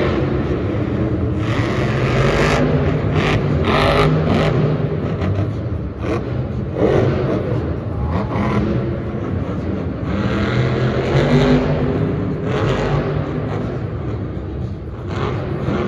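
Monster truck's supercharged V8 engine running and revving across the arena, rising and falling, with several louder surges.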